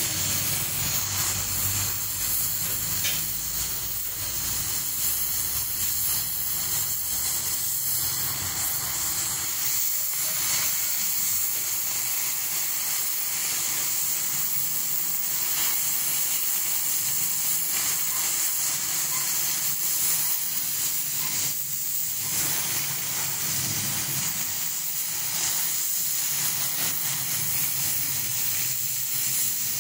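Oxy-fuel cutting torch hissing steadily as its oxygen jet cuts through thick steel plate. A low rumble underneath fades out after about ten seconds.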